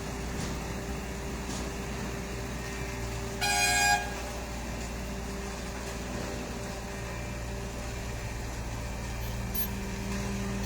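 Road roller's engine running steadily, with a short vehicle horn toot lasting about half a second, a few seconds in.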